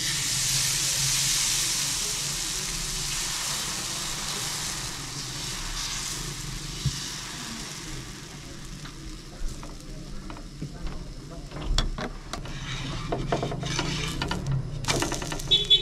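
Food sizzling as it fries in a hot pan, loudest at first and slowly fading, over a low steady hum, with a few clicks and knocks near the end.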